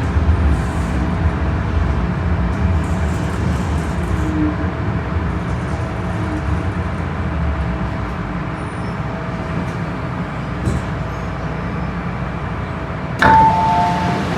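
MTR M-Train running underground on the Tsuen Wan Line: a steady low rumble from wheels and running gear. Near the end, a two-note chime (high then low) sounds on board.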